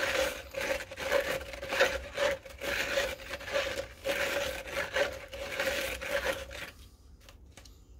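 A stirring stick scraping and rubbing around the inside of a plastic cup as thick wet cement mix is stirred. The scraping strokes repeat and stop about seven seconds in.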